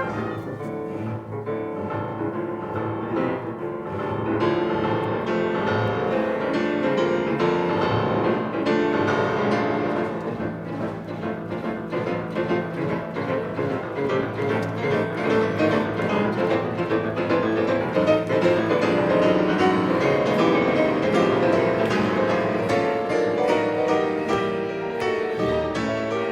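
Classical music: a piano playing with bowed strings, dense runs of notes at a steady level.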